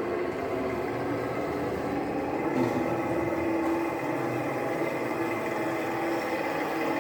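Radio-controlled model construction vehicle running: a steady mechanical whine over a low hum.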